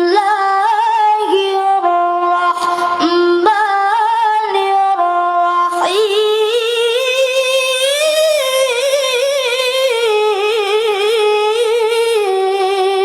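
A single high voice chanting Quranic recitation (tilawah) unaccompanied, in long held notes with wavering melismatic ornaments. About six seconds in, after a breath, the voice climbs to a higher, more ornamented phrase.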